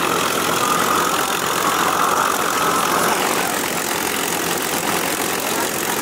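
Vintage warbird piston engines idling on the ramp, the nearest a P-51 Mustang's Packard Merlin V-12: a loud, steady, rough drone. A higher note in the drone fades about three seconds in.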